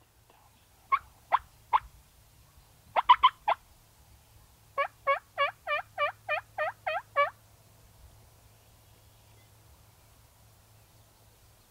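Wild turkey calling: three sharp clucks, then a quick cluster of four, then an even series of about nine yelps, each note falling and rising in pitch.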